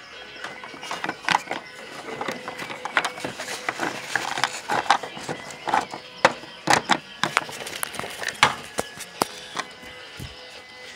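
Irregular plastic clicks and knocks of dolls and toy dollhouse furniture being handled and moved, busiest in the second half. Faint music plays underneath.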